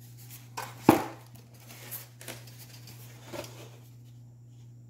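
Handling noise as a camera is picked up and repositioned: a few knocks and rubs, the loudest a sharp knock about a second in, over a steady low hum.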